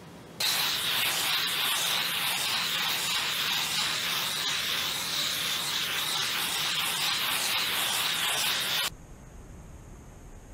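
Handheld gas torch on a yellow fuel cylinder hissing steadily as its flame is swept over freshly poured epoxy to pop surface bubbles. The hiss starts abruptly about half a second in and cuts off suddenly near the end.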